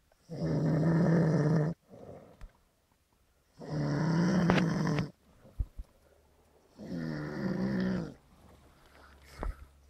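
A man snoring loudly in deep sleep: three long snores about three seconds apart, each lasting about a second and a half, with quiet breathing between them and a fourth snore starting at the very end.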